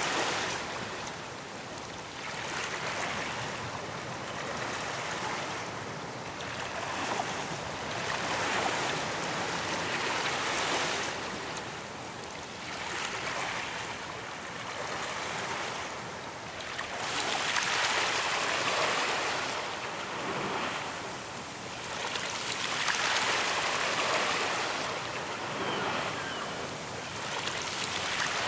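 Ocean waves breaking on a beach: a continuous rushing surf that swells and eases every few seconds as each wave comes in and washes back.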